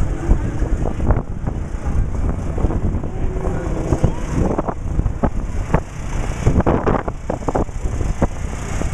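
Strong gusty wind buffeting the microphone: a loud, uneven low rumble with rattling knocks, and faint voices of people underneath.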